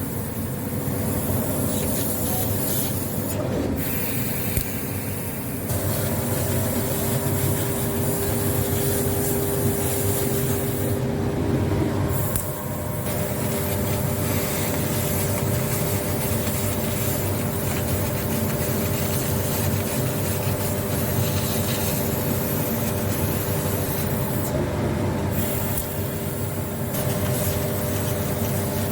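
Metal laser cutting machine running: a steady mechanical hum with a few constant tones under a hiss. The hiss cuts out briefly three or four times.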